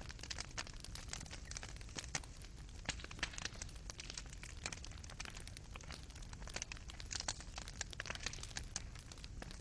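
Burning coals in a fireplace crackling: many small irregular pops and snaps over a low steady rumble of the fire.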